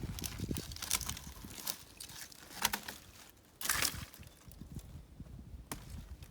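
Scattered knocks, clicks and rustling, with a louder scraping rustle a little past halfway; no chainsaw running.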